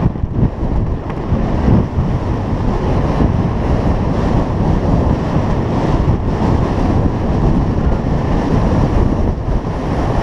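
Wind buffeting the microphone of a rider's GoPro Hero 3 while the horse carrying it gallops, a loud, steady low rumble.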